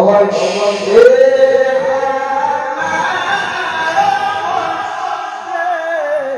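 Male qari reciting the Qur'an in the melodic, high-pitched tilawah style: one long phrase of held notes that climbs in pitch and ends with a wavering ornamental turn.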